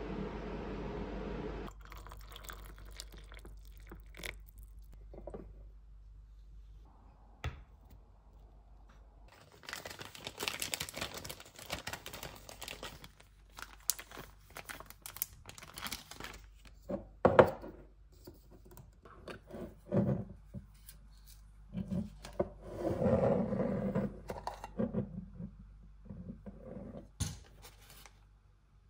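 Clear plastic cellophane treat bag crinkling and rustling as it is handled and filled, the longest rustle about ten seconds in. Light clicks and knocks of kitchen items on a countertop are scattered through it.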